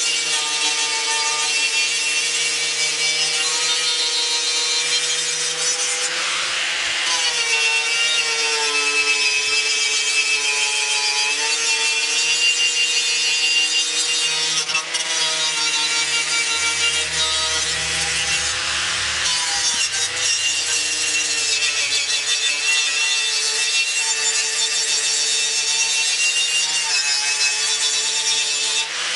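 Electric angle grinder with a wire wheel running steadily against a steel truck grille, brushing off rust and old paint to prepare it for primer. A steady motor whine under a harsh scrubbing hiss, with the pitch dipping slightly now and then as the wheel is pressed into the metal.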